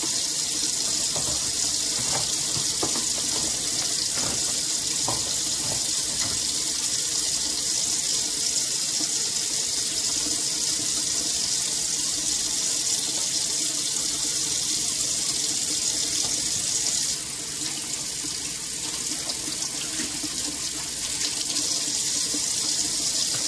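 Kitchen faucet running steadily into a sink, a continuous hiss of flowing water, with a few faint knocks. The water sound drops a little about seventeen seconds in and picks up again a few seconds later.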